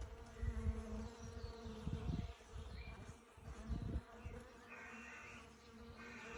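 Honeybee scouts buzzing around a swarm trap box, a steady droning hum of many bees investigating it as a possible nest site. Irregular low rumbles come and go during the first half.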